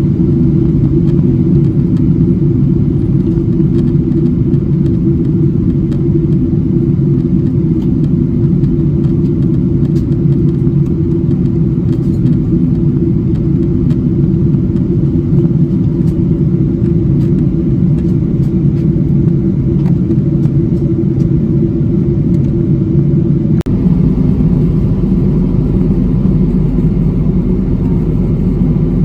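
Steady drone of airliner cabin noise from the engines and rushing air, heard from inside the plane. There is a momentary break about three-quarters of the way through, after which the deep rumble is slightly heavier.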